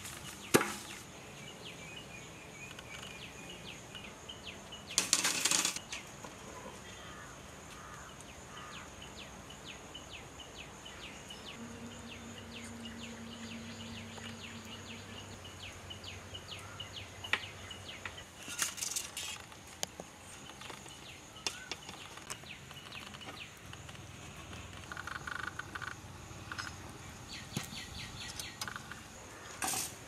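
Rural outdoor ambience: a steady high-pitched insect drone with faint ticking chirps. It is broken by a few short rustling noises, the loudest about five seconds in.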